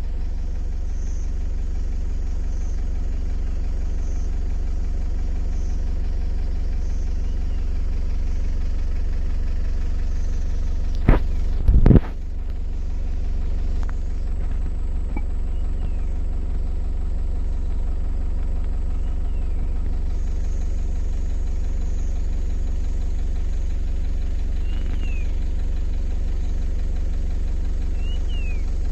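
A steady low motor drone, like an engine running at a constant speed. About eleven and twelve seconds in there are two sharp knocks, and a few faint short high chirps come now and then.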